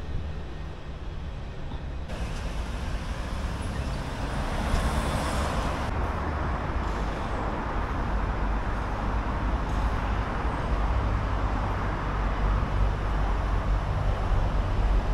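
City road traffic: a steady hiss of passing cars over a low rumble, swelling as a vehicle goes by about five seconds in.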